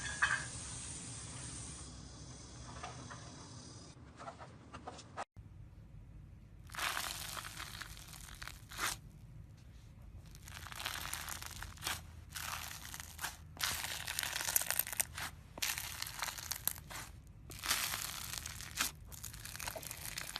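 Hands squeezing and stretching slime, making crackling, tearing sounds in repeated bursts of a second or two. The bursts begin after a cut about five seconds in, following a quieter stretch of softer squishing.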